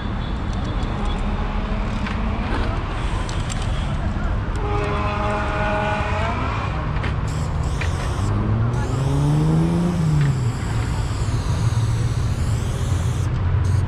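City road traffic: a steady rumble of passing cars and buses, with one engine revving up and easing off about eight to ten seconds in.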